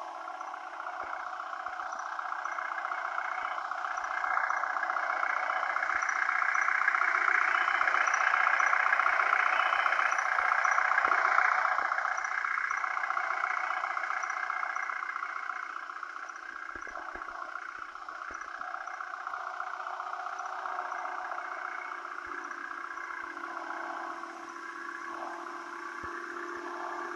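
Vehicle engine revving hard and held under heavy load, as in a tug-of-war pull. It rises to its loudest partway through, then eases off to a steady lower running.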